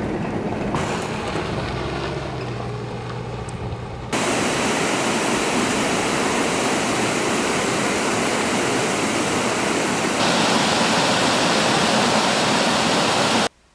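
A waterfall cascading over rock: a loud, steady rush of water that starts abruptly about four seconds in and cuts off sharply just before the end. Before it comes a quieter low rumble with a steady hum.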